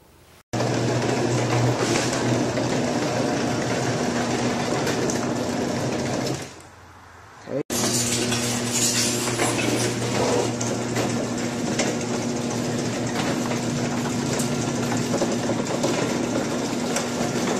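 Craftsman half-horsepower garage door opener running as the door travels: a loud, steady motor hum with mechanical noise. It starts abruptly, dies away about six seconds in, and starts again abruptly about a second later.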